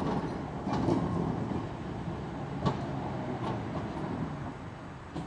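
Vintage tram rolling slowly along street track with a low running rumble. A few sharp clicks come from the wheels on the rails, the loudest a little over halfway through.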